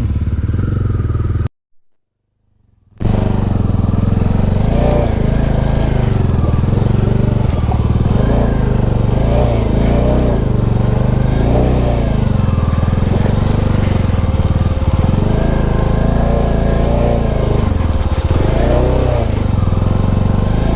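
Motorcycle engine running steadily at low speed on a rough off-road trail, with the sound cutting out briefly about a second and a half in.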